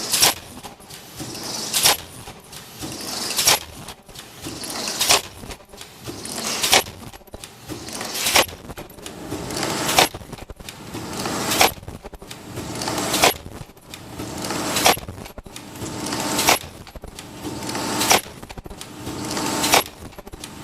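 Automatic ultrasonic inner ear loop welding machine for face masks running through its cycle: a sharp mechanical click about every 1.6 seconds, with a machine whirring and shuffling noise that swells between the clicks.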